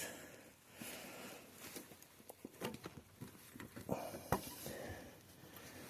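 Faint scattered clicks and rustling from hands handling the ATV's wiring and connectors, with one sharper click a little after the middle.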